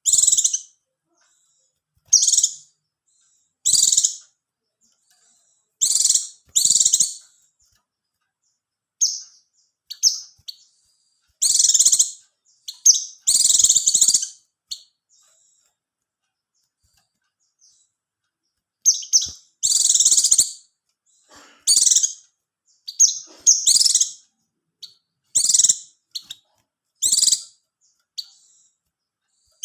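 Oriental white-eye (pleci) singing in short, high-pitched bursts of fast twittering song. Each burst lasts under a second to about two seconds, and the bursts are separated by silent pauses, including a long gap about halfway through.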